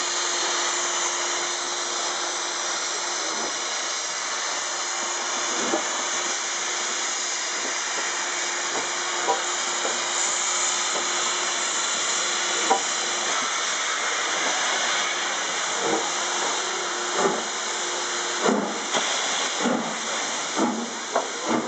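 LMS Stanier Black Five 4-6-0 steam locomotive No. 45428 hissing loudly and steadily as steam escapes around its cylinders while it gets the train moving. There are a few faint knocks at first, then from about three-quarters of the way in the exhaust chuffs come roughly once a second and quicken as the train pulls away.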